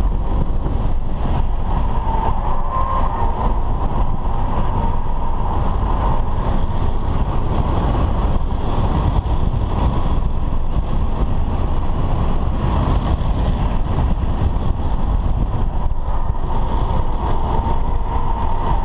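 BMW F10 5 Series sedan driven at speed on a race circuit, heard from inside the cabin: steady engine, tyre and wind noise.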